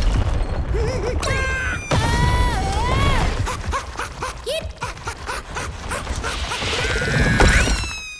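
Cartoon sound effects: rapid mechanical clicking and ratcheting, with whistle-like sliding tones that rise and fall, over a low rumble.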